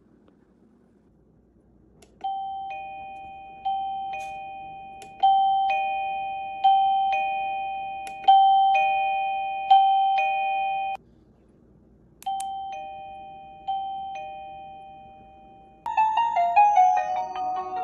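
AIDA wireless doorbell receiver playing an electronic two-note ding-dong chime over and over, one about every second and a half. There is a short pause partway through, and near the end it switches to a faster, many-note chime tune.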